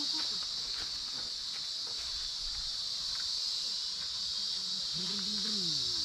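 Steady, high-pitched chorus of insects in the forest, unbroken throughout, with a short human voice sound near the end.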